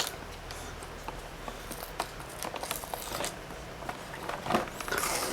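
Figure packaging being handled and opened: scattered light clicks and rustles of box material, with one sharp click at the start.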